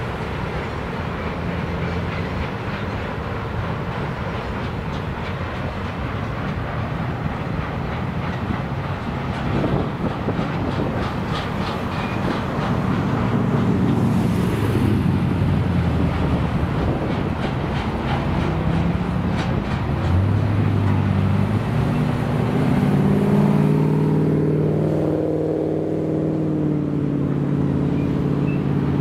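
Wagons of a broad-gauge container freight train rolling past across a bridge, with a steady rumble and wheels clicking over the rail joints, quickest around the middle. Over the last few seconds a humming tone comes in and bends up and down in pitch.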